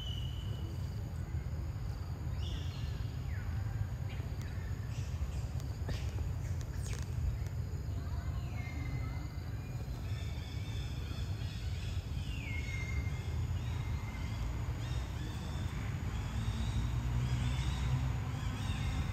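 Outdoor ambience with a steady low rumble and a few short whistled animal calls, each sliding down in pitch, spaced several seconds apart.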